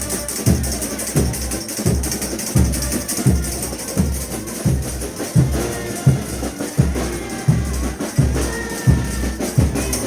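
Frevo street orchestra playing, with a bass drum beating steadily about every three quarters of a second under the band.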